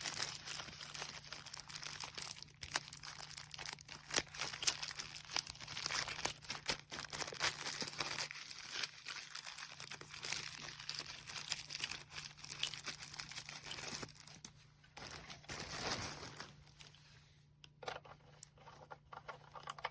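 Plastic packaging crinkling and rustling as the parts of a small heater are handled, with scattered clicks and taps.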